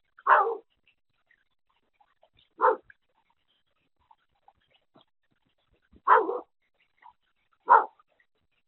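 Four short, loud, bark-like animal calls, spaced irregularly one to three and a half seconds apart.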